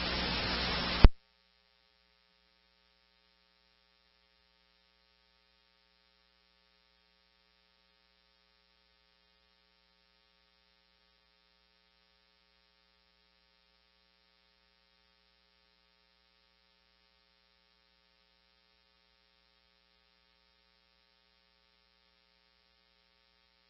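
Radio scanner hiss as a transmission ends, cutting off sharply about a second in, then near silence with a faint steady electrical hum.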